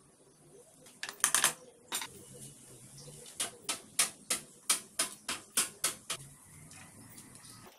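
Metal parts of a Singer sewing machine's underside mechanism clicking as they are handled and fitted: a few clicks about a second in, then a run of about nine sharp clicks, roughly three a second.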